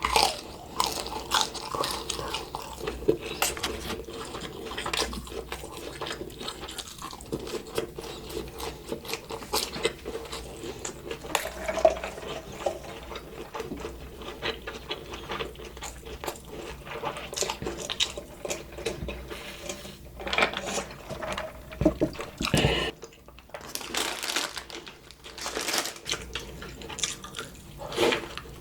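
A person eating McDonald's fast food with no talking: irregular wet chewing and crunching sounds with frequent short clicks and louder bursts.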